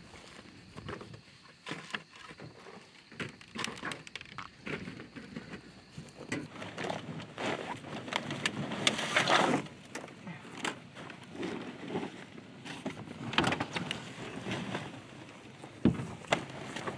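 Rustling and scraping of canvas decoy bags and plastic goose decoys being handled and unloaded from a pickup truck bed, with scattered clicks and knocks. The loudest rustling comes about halfway through, and there is a sharp knock near the end.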